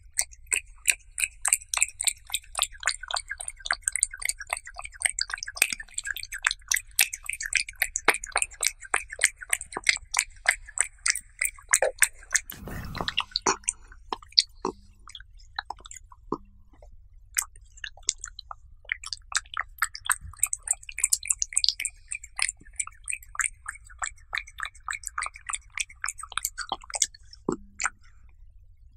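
Cat chewing and licking raw beef close to the microphone: rapid wet smacking and clicking. A soft thump comes about halfway through, then the sounds thin out for a few seconds before the chewing and lip-smacking pick up again.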